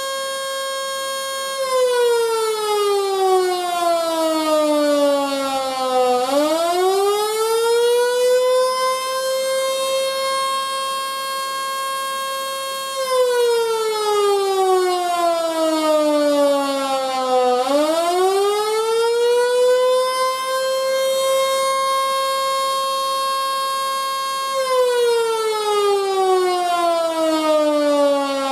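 A 1911-era Model 2 outdoor electric siren sounding the attack signal: a rising and falling wail that holds at its top pitch for a few seconds, falls for about four seconds, then climbs back, repeating about every eleven seconds.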